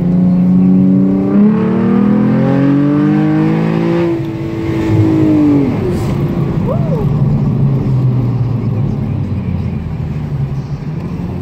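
Car engine heard from inside the cabin, accelerating hard with its pitch climbing for a few seconds, then falling away as it lets off about four seconds in and settling into lower, rougher running with road noise.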